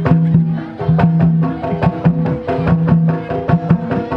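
Live gamelan-style music accompanying a kuda kepang dance: fast drum strokes over held pitched notes that change pitch in steps, with a recurring low tone.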